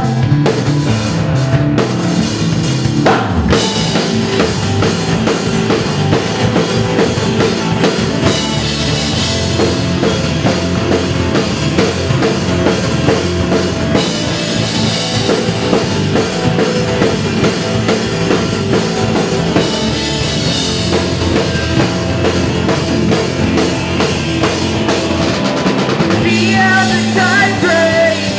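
Indie rock band playing live: drum kit to the fore, with electric guitar and bass, a full and steady loud passage that shifts a few seconds in and again near the end.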